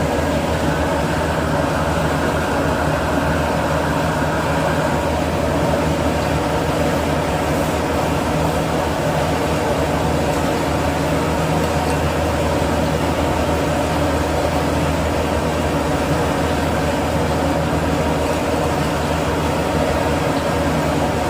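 Steady, loud mechanical drone with a low hum from kitchen machinery, such as a restaurant's exhaust hood fan and high-fire burner, running without a break.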